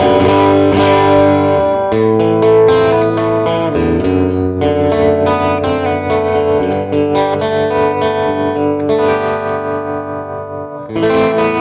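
Electric guitar with a P90-style pickup played through a 30-watt handwired all-tube amplifier (Deluxe Amplification Anvil) into a 12-inch speaker. Chords are struck and left to ring, with fresh strums a few times.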